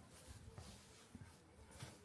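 Near silence: faint background hiss with a few soft, low thumps and faint clicks.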